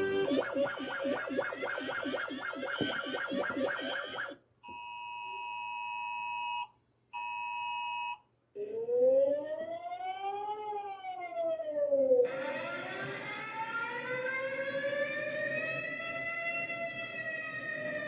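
A run of emergency alert alarm sounds, one after another. First comes about four seconds of rapidly pulsing tones. Next are two steady notes sounding together as the alert attention signal, broken by a short gap. Then a siren sweeps up and back down once, and finally a slow wailing siren rises and falls.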